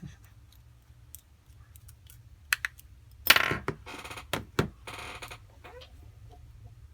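Small tools and phone parts handled on a workbench during an iPhone repair: scattered light clicks, a louder clatter about halfway through, then two short scraping rustles.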